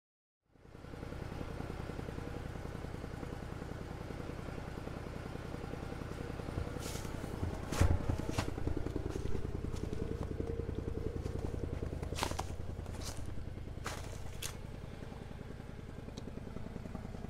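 Can-Am Defender HD10 UTV's V-twin engine running steadily, with a few sharp cracks and crunches of brush and frozen ground over it, mostly in the middle stretch.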